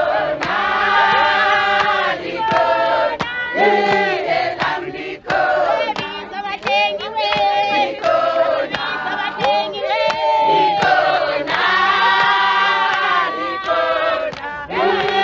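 A crowd of women singing together in chorus, with sharp handclaps scattered through the singing.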